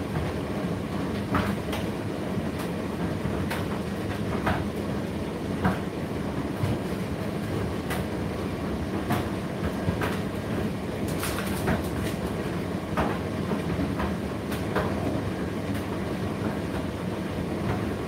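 Indesit IDC8T3 8 kg condenser tumble dryer running mid-cycle: a steady low hum from the turning drum and motor, with a light click or knock about once a second.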